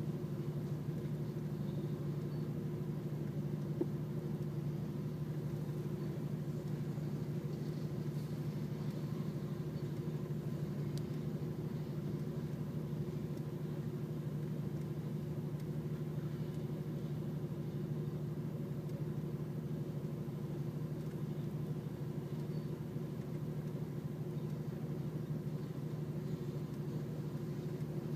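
Slow-moving freight train rolling through a grade crossing: a steady low rumble and hum with no break and no clear rhythm of wheel clicks.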